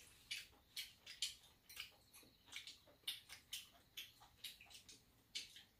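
Quiet eating sounds from people eating noodle soup and porridge with chopsticks: irregular wet mouth clicks and small slurps, about three a second.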